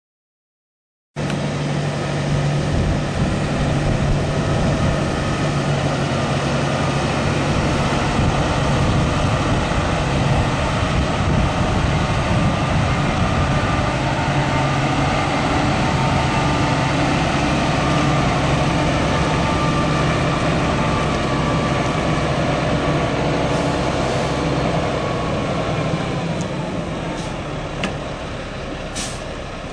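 Mack E7-350 12.0-litre inline-six diesel of a 1993 Mack RD688S semi tractor running steadily as the truck drives, starting about a second in and easing off in the last few seconds as it pulls away.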